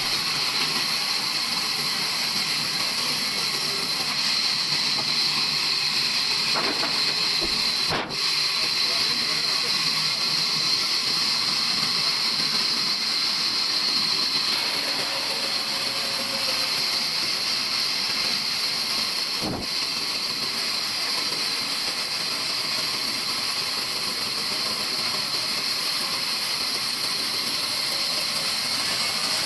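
Sawmill blade running through a wooden beam: a steady, loud, high-pitched hiss that breaks briefly about eight seconds in.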